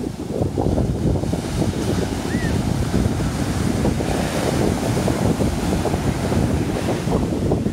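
Atlantic surf breaking and washing up the beach, with heavy wind buffeting the microphone.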